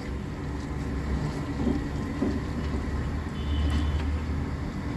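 A steady low rumble, with a few faint scrapes of a spoon stirring the masala in a metal cooking pot.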